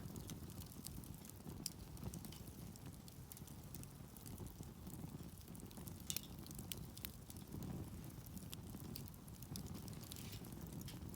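Wood campfire crackling: many irregular small pops and snaps over a steady low rumble.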